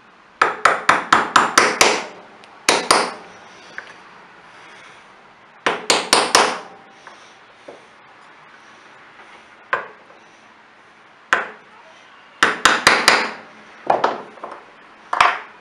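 Hammer tapping an old socket that drives a new crankshaft seal into the aluminium crankcase half of a Stihl BR420 Magnum blower: quick runs of six to eight taps with single taps in between. The tone of the taps changes once the seal is flush and the socket bottoms out on the case.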